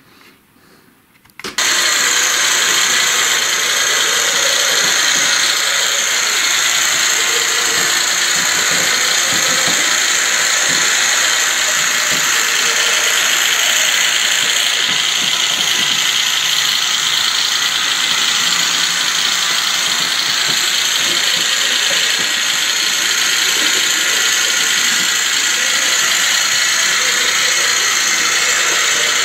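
N-scale model train running on the layout track: a loud, steady whirring and rattling of motor, gears and wheels on rail, starting about a second and a half in and cutting off abruptly at the end.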